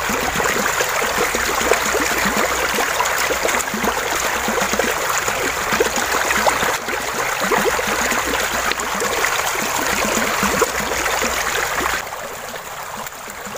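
Shallow stream water rushing and splashing steadily. It drops suddenly to a softer flow about twelve seconds in.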